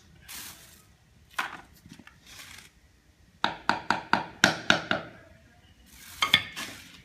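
A mallet tapping a freshly laid ceramic floor tile to bed and level it: a quick run of about seven sharp knocks with a short ring, plus a few single knocks and soft scrapes.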